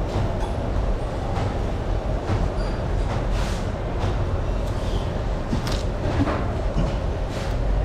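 Steady low rumble of busy indoor market background noise, with scattered light clinks and knocks.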